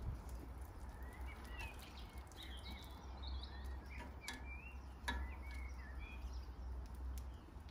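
Small birds chirping and twittering, with two sharp metallic clicks about four and five seconds in as barbecue tongs knock against the grill grate while sausages are turned. A steady low rumble lies underneath.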